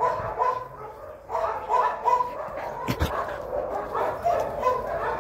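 A dog barking in bursts of quick, high-pitched play barks, calling another dog to play. One sharp knock about three seconds in.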